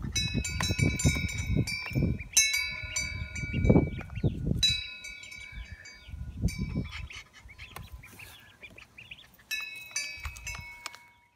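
Ducklings peeping in a shallow tub of water, high clear notes repeated throughout, with loud low bumps of buffeting on the microphone during the first half.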